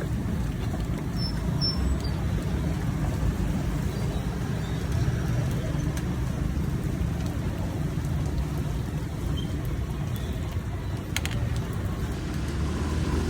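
Steady wash of heavy rain mixed with passing street traffic.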